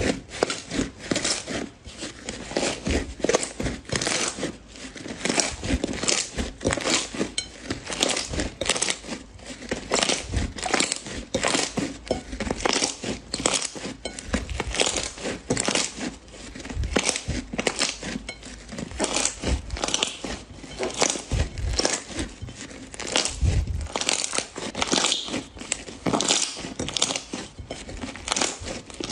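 Green slime being squeezed and kneaded by hand, giving a continuous rapid sticky crackling and snapping, many small clicks a second.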